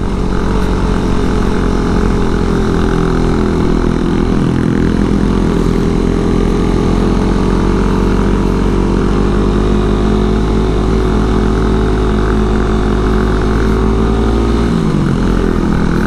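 Suzuki Satria F150 Fi's single-cylinder four-stroke engine pulling steadily under load up a steep climb. Its note dips and then rises again near the end.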